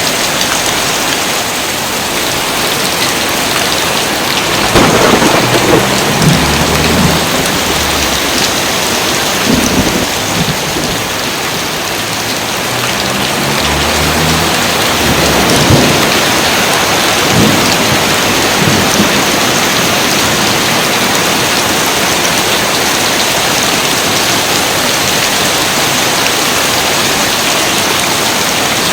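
Steady rain falling, with thunder rumbling twice: a long rumble about five seconds in and another rolling from about 13 to 19 seconds.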